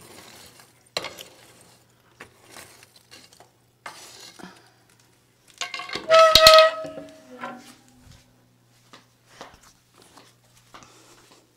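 A metal poker raking and stirring the ashes and coals in a wood stove: scattered scrapes and clinks, with one loud metallic clank that rings briefly about six seconds in.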